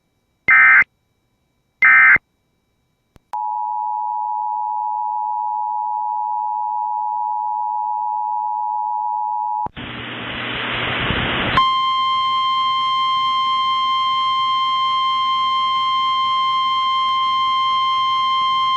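Emergency Alert System signalling. Two short SAME digital data bursts come about a second apart, and about 3 s in the two-tone EAS attention signal starts and holds steady for about six seconds. It breaks into a couple of seconds of loud static, and from about 12 s a steady single-pitched NOAA Weather Radio alert tone sounds, heralding a new warning.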